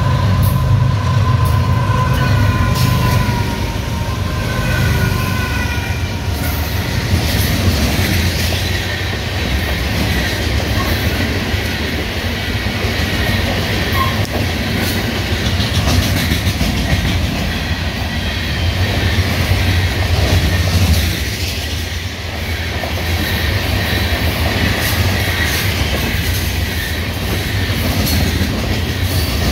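Florida East Coast Railway diesel freight train passing close by: a steady low rumble with the wheels clicking and the hopper cars and boxcars rattling as they roll past. In the first five seconds or so a high chord of several tones sounds and drops in pitch as the locomotive goes by.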